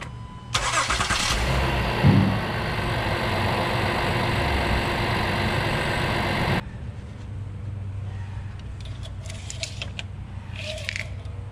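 Honda Ridgeline's 3.5-litre V6 started after an oil change to circulate the fresh oil: the starter cranks briefly, the engine catches about two seconds in and runs loudly for a few seconds, then the sound drops abruptly to a low steady hum. A few light clicks in the engine bay near the end.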